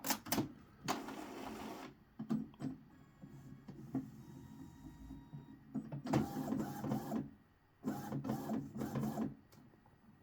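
Epson XP-205 inkjet printer running its power-on start-up cycle: a few clicks, then several stretches of mechanical whirring and chattering, each about a second long. It is initialising normally, the flashing-lights error cleared after its internal trace was cleaned.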